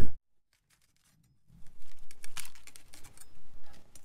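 A chef's knife slicing a green bell pepper on a wooden cutting board: a run of short, crisp cuts and taps. It starts about a second and a half in, after a stretch of dead silence.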